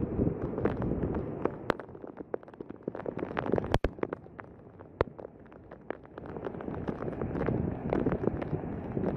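Rushing muddy floodwater pouring down a street, a steady rush dotted with many sharp clicks and knocks.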